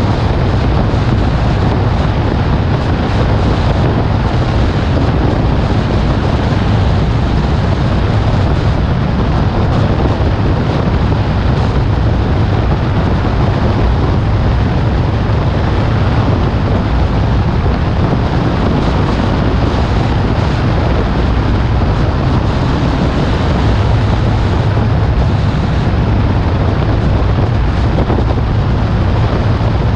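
Steady wind rush over a car's bonnet-mounted camera microphone at driving speed, over a low rumble of the car's engine and tyres on the road.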